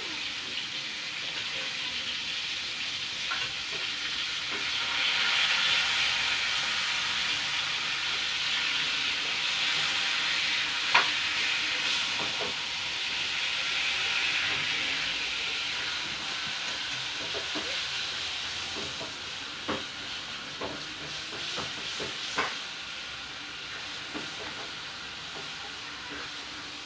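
Soy-marinated pork chops frying in hot oil in a pan, a steady sizzle that swells for a while in the middle, with a few sharp clicks, the loudest about eleven seconds in.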